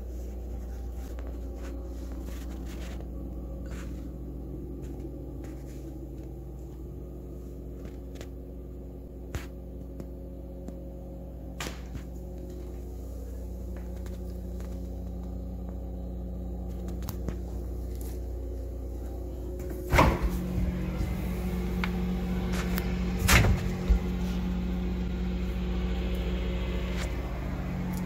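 Frigidaire Professional upright refrigerator and freezer running with a steady low hum of several tones, a running noise the owner finds pretty noisy. About two-thirds through come two thuds as a door is pulled open, after which the hum gets louder and a soft hiss joins it.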